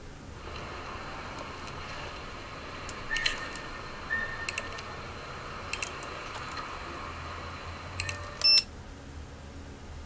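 Several button clicks on a GT Sound GTX 1000 car DVD head unit, some with a short electronic beep, over a faint steady hiss from the unit's output. The hiss cuts off suddenly near the end as the unit switches to TV mode.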